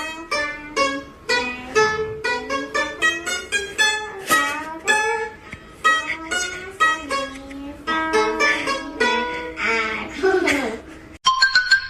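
Plucked-string music: a quick run of short picked notes, several a second, that breaks off suddenly near the end.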